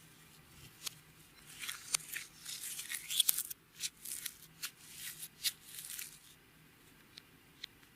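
Clear slime with glitter being squeezed and stretched by hand, with a dense run of small crackles and pops, then two lone clicks near the end.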